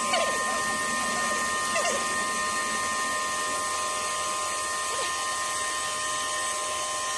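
Steady machine noise: an even hiss with a constant high whine, and faint voices now and then.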